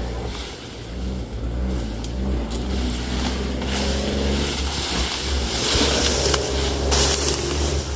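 A motor vehicle running: a steady low engine drone whose pitch shifts up and down a few times, with a rushing noise over it.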